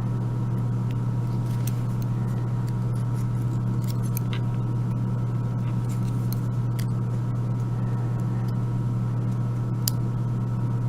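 A steady low hum with a few faint steady higher tones over it. Scattered small sharp clicks, a few seconds apart, come from small lock pins and tools being handled while the cylinder's top pins are taken out.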